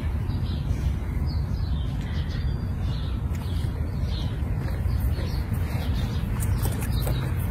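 Birds chirping in short repeated calls, a few to the second, over a steady low rumble.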